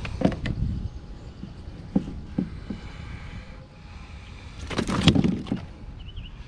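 A small snook being unhooked by hand on a plastic kayak: a few short, light knocks, then a louder flurry of the fish flapping and knocking against the hull about five seconds in.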